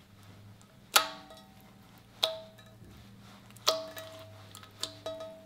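Thick slime being squeezed and folded by hand, giving off sharp pops and clicks as trapped air pockets burst: three loud pops about a second apart and a few smaller clicks near the end, each ringing briefly.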